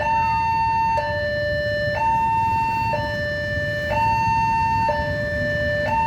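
Railway level-crossing warning siren sounding its two-tone signal, a higher and a lower tone alternating about once a second, the warning that a train is approaching the crossing. A low rumble runs underneath.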